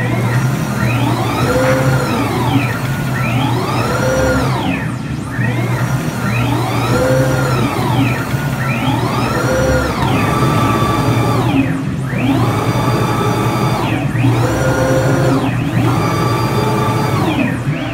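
KL-1212 CNC router's gantry and spindle head travelling back and forth, the axis drive motors whining up and then down in pitch with each move, about every two and a half seconds. From about ten seconds in, each move holds a steady pitch between the rise and the fall. A steady low hum runs underneath.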